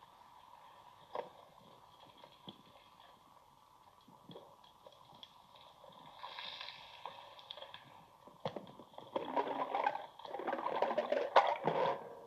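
Underwater sound picked up by a spearfisher's camera: faint scattered clicking, then a sharp knock about eight and a half seconds in, followed by a few seconds of loud crackling and scraping as the hand spear takes a fish.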